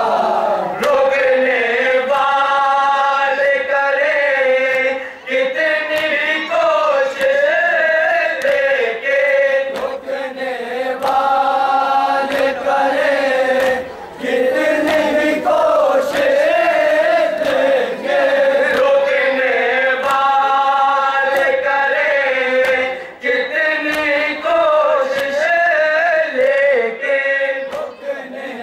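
Nauha: a group of men chanting a Shia mourning lament together without instruments, in sung lines with short breaks between them.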